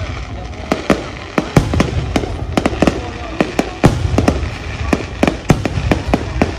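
Fireworks display going off: a dense, irregular run of sharp bangs, several a second, over a continuous low rumble of more distant bursts.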